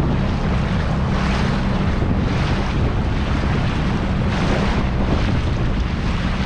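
Dinghy under way with its outboard motor running, wind buffeting the microphone heavily and water rushing past the hull. The noise is loud and steady throughout.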